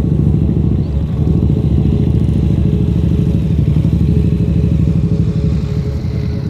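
Motorcycle engine running steadily while the bike is ridden, a dense low pulsing throughout.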